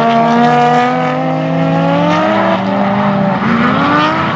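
Drift car engines held at high revs as the cars slide past in tandem. Their notes slowly shift in pitch, with one revving up again near the end.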